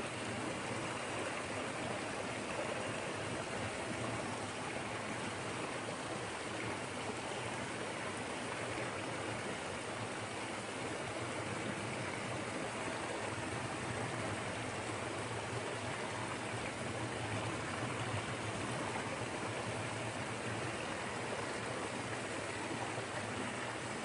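Small waterfall spilling over a log jam and splashing into a creek pool: a steady, even rush of falling water.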